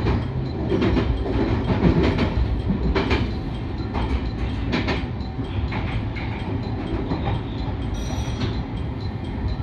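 Marine Liner rapid electric train running on the rails, heard from inside the front car: a steady low rumble with wheel clacks over rail joints and points roughly once a second. A brief high tone comes near the end.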